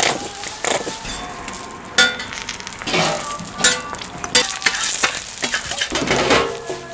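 Eggs and a meat patty sizzling on a flat-top griddle, with a few sharp clacks along the way.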